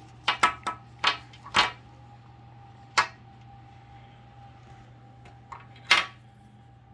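Sharp clicks and taps of a Benchmade Emissary pocket knife being handled: a quick run of five in the first two seconds, one about three seconds in, and a louder one near the end.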